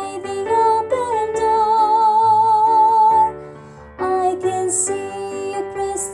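A woman singing the soprano 2 line of a gospel song over instrumental accompaniment, holding one note with vibrato for about two seconds before the melody moves on.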